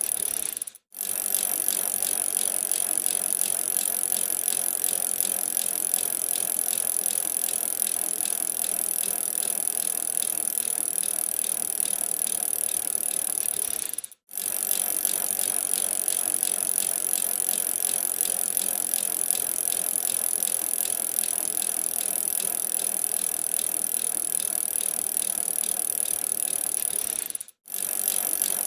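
Bicycle in motion: a steady rattling and fine ticking of the chain and freewheel ratchet. The sound breaks off for a split second three times, about every thirteen and a half seconds.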